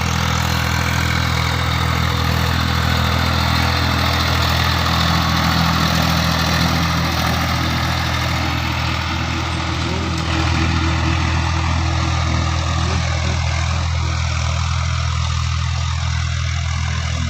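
Old tractor engine idling steadily at an even speed, a low, constant drone. A higher hiss that sits over it dies away about halfway through.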